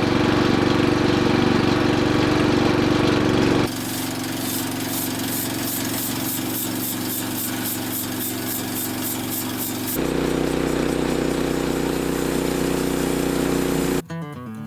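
Sawmill engine running steadily, in three spliced stretches whose pitch and level change abruptly about four and ten seconds in. In the middle stretch a fast, regular ticking, about three a second, rides over the engine.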